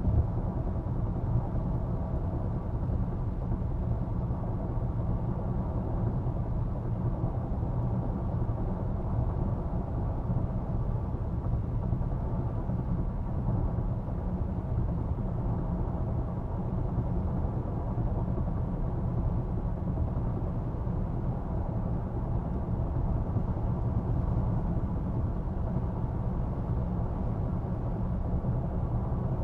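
Interior cabin noise of a 2023 Range Rover Velar driving at highway speed: a steady low tyre and road rumble, with some wind noise from a windy day.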